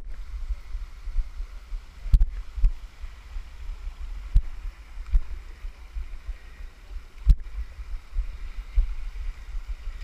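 Low, uneven rumble of handling noise on a handheld camera's microphone, with irregular bumps and knocks, over a faint steady rush of water running over rock.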